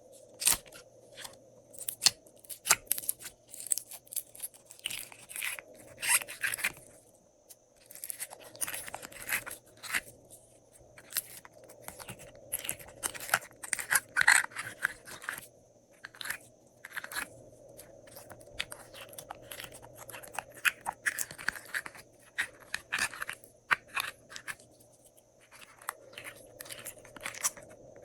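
Glossy slime being mixed and kneaded by hand, giving irregular sticky clicks, crackles and squishes in quick clusters, over a faint steady hum.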